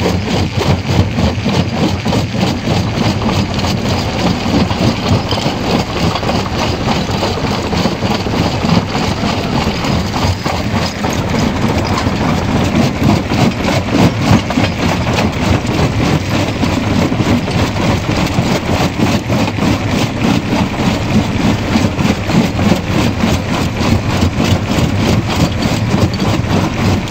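Jaw crusher running and crushing stone. A loud, steady machine drone mixed with constant cracking and clattering of rock between the jaws.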